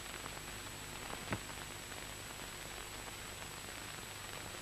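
Steady hiss and static of an old film soundtrack, with a few faint clicks and one sharper click about a second in.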